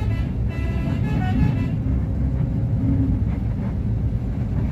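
Steady low engine and road rumble of a moving bus, heard from inside. In the first two seconds a multi-tone vehicle horn sounds a short tune of a few stepped notes.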